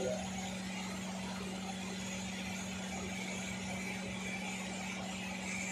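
Steady mechanical hum with one constant low tone over an even background noise, unchanging throughout.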